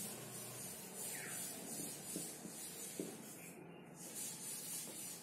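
Marker pen writing on a whiteboard: faint rubbing strokes, a short falling squeak about a second in, and a few light taps of the tip.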